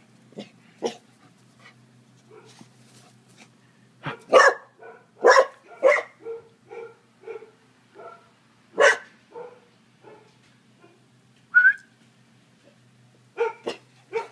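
A frisky young black dog barking in play: a string of short, sharp barks, loudest and quickest about four to six seconds in, with single loud barks near nine and twelve seconds.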